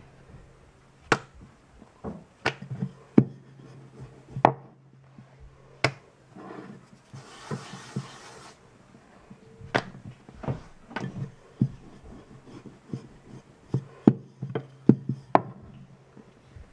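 Wooden rolling pin rolling out paratha dough on a granite countertop: irregular sharp knocks as the pin comes down on the stone, with soft rubbing of dough and pin in between. A short patch of soft hiss comes about seven seconds in.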